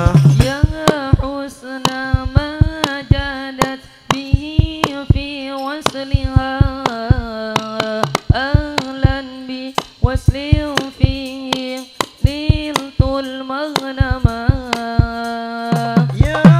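A male solo voice sings a long, richly ornamented sholawat melody over sparse hand strikes on frame drums (rebana). The full drum ensemble comes back in near the end.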